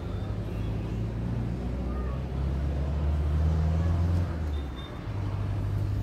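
Low, steady hum of a motor vehicle's engine running, growing louder toward the middle and dipping briefly about five seconds in before carrying on.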